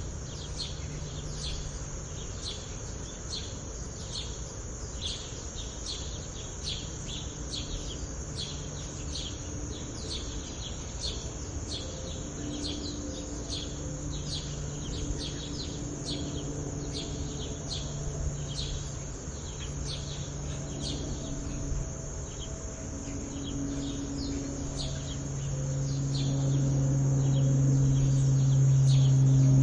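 Sparrows chirping busily and continuously. A plane's low drone is faint at first and grows steadily louder over the last few seconds as it comes overhead.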